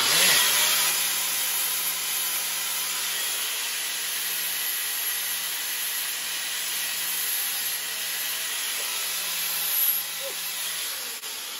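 Hand-held grinder running steadily with a hissing sound, feathering and thinning the sides of a notched chassis tube; it eases off near the end.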